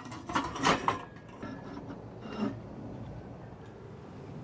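Light metallic clicks and clatter as a stainless steel stock pot is lifted and a perforated metal heat diffuser is set under it on a portable stove, then a faint steady background.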